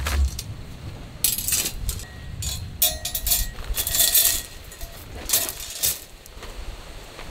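Folding wire-mesh metal grill stand being unfolded by hand, its wire frame clinking and rattling several times, some knocks with a brief metallic ring.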